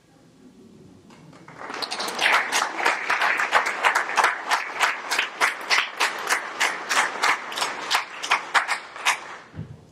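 Applause from an audience in a hall, swelling up over the first two seconds, with a number of sharp single claps close by standing out, then stopping suddenly about nine seconds in.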